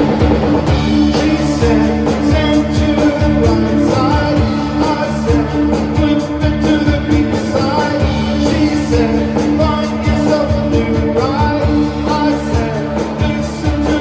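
A rock band playing live in a space-rock, shoegaze style: echoing, reverb-heavy electric guitar over held bass notes and a steady drum beat, with a vocal melody on top.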